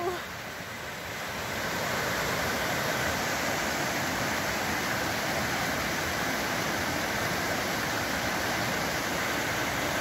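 Rushing glacial-meltwater mountain stream: a steady rush of white water over rocks, growing a little louder over the first two seconds and then holding even.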